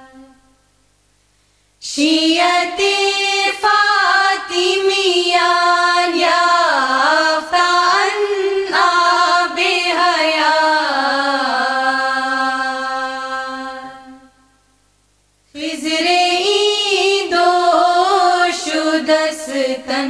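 Devotional singing of a Farsi Ismaili manqabat (ginan): long drawn-out sung phrases with held notes and wavering melismatic turns. A held note dies away at the start, and after a pause of about two seconds the singing resumes. It fades out about three-quarters of the way through, then starts again after a second short pause.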